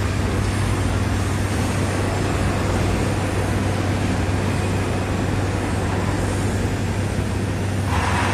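Excavator's diesel engine running with a steady low hum amid street traffic noise, and a short burst of rushing noise near the end.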